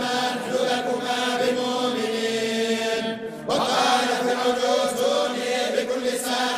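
A group of men's voices reciting the Quran together in unison, a slow, drawn-out chant. The voices break off briefly about three seconds in, then resume.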